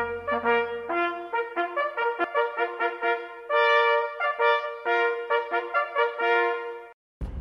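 Hunting horns blowing a call of quick short notes with a few longer held ones, the kind of signal blown over the game laid out after a driven wild boar hunt. The call cuts off abruptly near the end.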